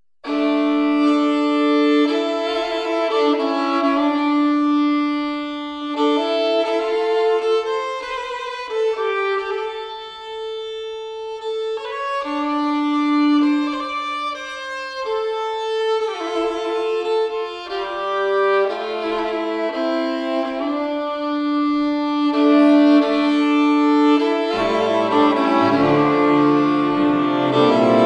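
Background music: a slow violin melody of long held notes starts suddenly, and lower strings join near the end.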